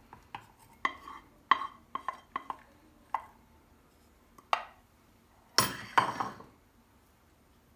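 Kitchenware clinks: a spoon knocking and scraping against a pan and a glass bowl as the molasses-and-butter mixture is transferred, a series of light knocks with a louder clatter about six seconds in.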